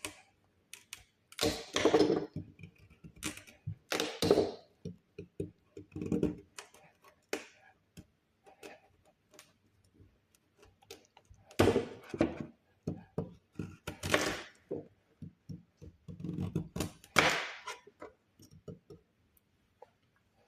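A knife chopping a carrot into small pieces on a cutting board: an irregular run of short taps and thunks. Several longer, louder noises come in between.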